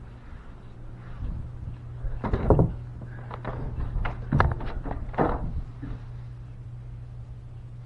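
A door being opened by its round metal knob: handling knocks, the knob turning and the latch clicking, with loud knocks about two, four and five seconds in, over a steady low hum.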